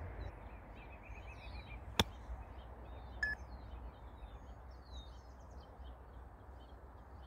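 A single sharp click about two seconds in: a Callaway Jaws 60-degree wedge striking a Chromesoft X golf ball on a 70-yard partial-swing shot. Birds chirp over a steady low outdoor rumble.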